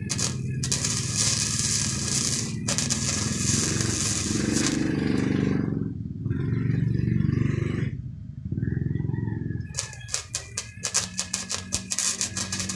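Flux-cored MIG welding: the arc hisses in long runs, then breaks into rapid stuttering crackles near the end, over a low steady hum.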